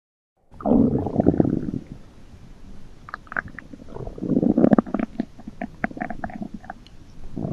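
A woman's stomach growling, heard as low gurgling rumbles. A loud rumble starts about half a second in, quieter gurgles and small pops follow, and a second loud rumble comes around the middle.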